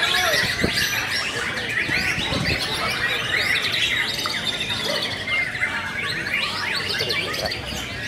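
White-rumped shama (murai batu) singing in a cage: a dense, unbroken run of quick whistles, sweeps and chirps.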